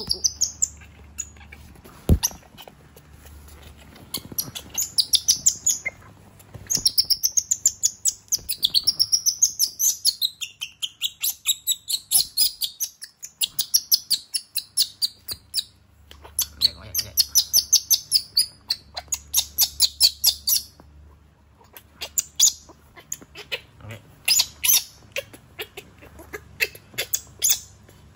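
Baby monkey squealing in long runs of rapid, high-pitched calls that glide up and down in pitch, with short pauses between runs: the cries of an upset baby monkey.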